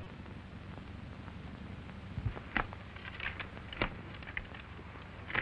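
A few scattered clicks and taps of playing cards and glasses on a table, over the steady hum and hiss of an old 1930s film soundtrack.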